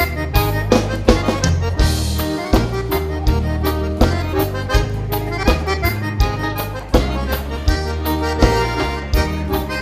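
Instrumental break of a bandinha dance song: an accordion plays the melody over a bass line and a steady beat.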